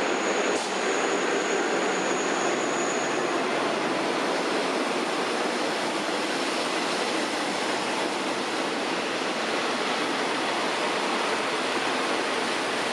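Train running along the track: a steady rushing noise of wheels on rails, with a faint high whine that fades out in the first few seconds.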